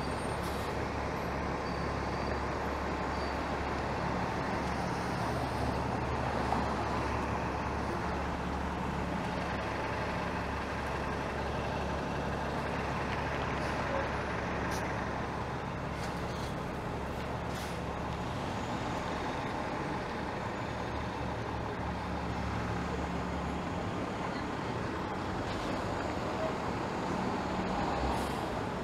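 City transit buses idling and moving off at an intersection: a steady low diesel engine drone over general road noise, with the deepest drone dropping away near the end.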